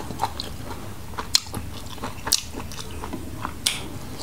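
A man chewing and biting fried giant squid tentacles close to the microphone: irregular wet mouth clicks and smacks, a few louder than the rest.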